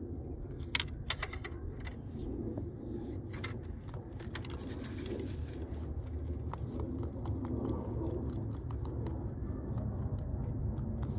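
A rabbit chewing and crunching food, a scatter of short sharp crunches, over a steady low rumble.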